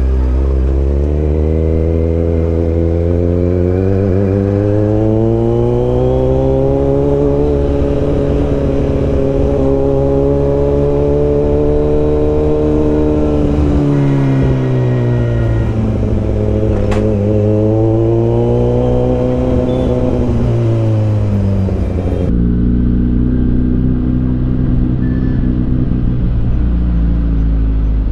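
Loud motorcycle engine and exhaust under way, its pitch climbing as the revs build, holding, dropping and climbing again. An abrupt cut a little before the end gives way to steadier, lower running.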